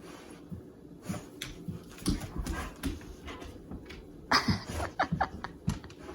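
Pet dog excitedly greeting its owner: a string of short snuffling and scuffling sounds, busiest about four seconds in.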